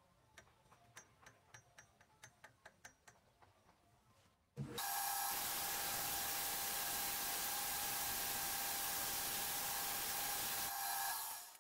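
Faint light clicks and taps as a vernier caliper is handled on a steel shaft. About four and a half seconds in, the homemade lathe starts with a brief rising hum, then runs with a steady whine under a loud, even hiss as a strip of emery cloth is held against the spinning steel shaft to polish it. It cuts off near the end.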